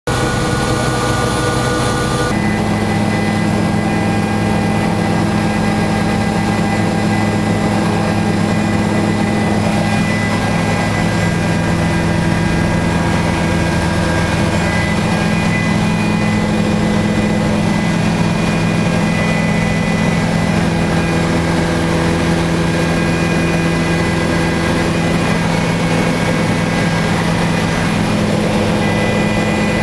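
Bell 407 helicopter's turboshaft engine and rotor running, heard from inside the cabin: a steady, loud whine of several held tones over a dense rush. The mix of tones changes abruptly about two seconds in.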